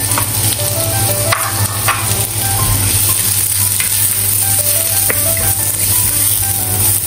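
Diced onion and minced ginger sizzling in hot oil in a pan as they are stir-fried to soften, a wooden spatula scraping through them now and then. A faint light melody plays underneath.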